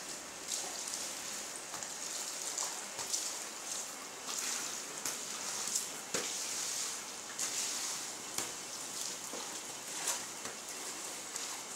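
Floodwater swishing and splashing as a floor squeegee and a mop push it across a wet tiled floor, in uneven swells with a few sharp knocks.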